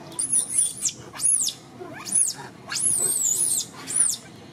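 Infant long-tailed macaque crying in distress: about five shrill, very high squeals that each rise and fall, the fourth one longer and wavering.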